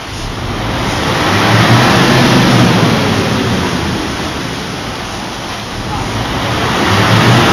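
A motor running, swelling in loudness about two seconds in and again near the end, with workers' voices.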